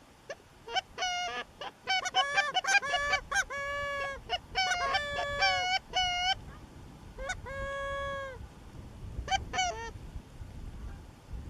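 Goose honking: a fast run of short honks and clucks, then a few longer drawn-out honks, the longest lasting about a second, and a short burst of honks near the end.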